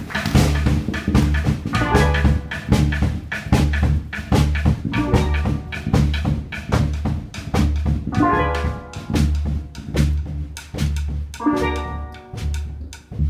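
Live instrumental music from steel pan, electric bass and drum kit: a steady drum beat and bass line throughout, with steel pan phrases coming in a few times, around two seconds in, about eight seconds in and near the end.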